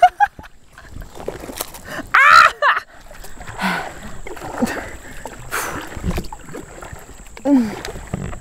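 Double-bladed kayak paddle strokes dipping and splashing through weedy, algae-covered water, with water sloshing around the hull. A short, loud call stands out about two seconds in, and two lower falling calls come near the end.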